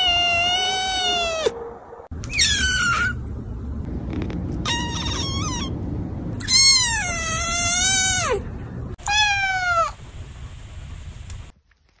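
Kitten meowing again and again: five high-pitched meows with short gaps between them, each bending in pitch and falling away at its end, the longest and loudest one around the middle.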